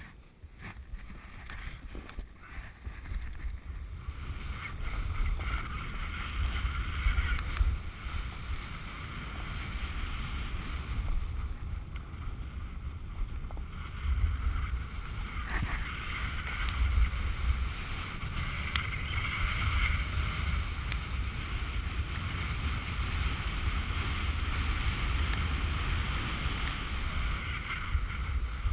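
Wind buffeting a GoPro's microphone while riding down a run, over the hiss and scrape of a snowboard sliding on snow; it builds up over the first few seconds as speed picks up, then runs on steadily with uneven surges.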